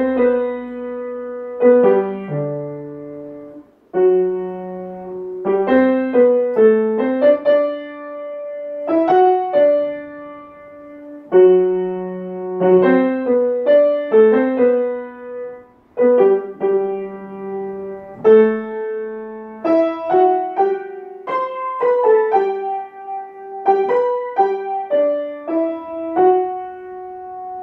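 Boston grand piano played solo: a piece in the Lydian mode, melody over chords with notes struck and left to ring. The phrases break off briefly about four seconds in and again about sixteen seconds in.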